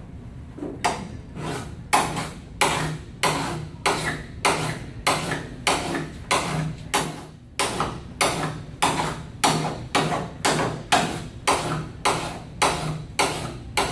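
Hand file rasping along the bevelled cutting edge of a steel rotary mower blade in steady, even strokes, a little under two a second, starting about a second in. The blade is being sharpened, each pass taking off a little metal.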